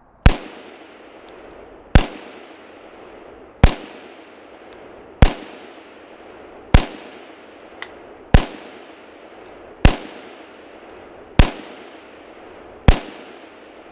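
7.5FK BRNO Field Pistol firing nine shots, about a second and a half apart. Each is a sharp crack followed by a fading echo.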